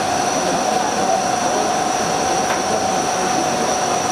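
CNC turret machine cutting a metal part with a rotating tool under flood coolant: a steady high whine over a continuous hiss of coolant spray and cutting.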